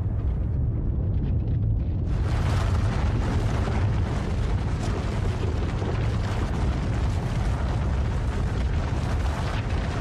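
Dramatic sound-effect rumble: a deep, continuous rumbling, joined about two seconds in by a loud, steady rushing noise.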